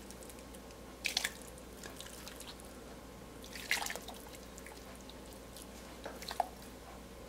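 Water in a stainless pressure-cooker pot splashing and dripping as pieces of beef tripe and cow's foot are put in and pushed under by hand: three short, faint splashes, about one, almost four and about six seconds in.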